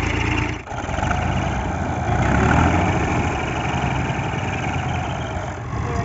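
Old Fiat 480 tractor's three-cylinder diesel engine running steadily at idle. There is a momentary break just after the start, and the engine gets briefly louder about two seconds in.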